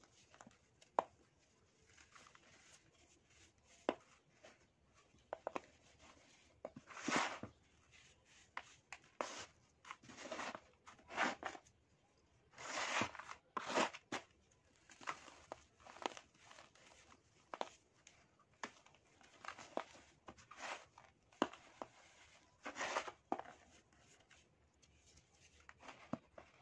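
Dry sand being handled by hand: poured and sifted through the fingers, crumbled from a packed chunk, and dug into with the fingertips, in irregular crunchy hisses of about a second each, with sharp little clicks between them.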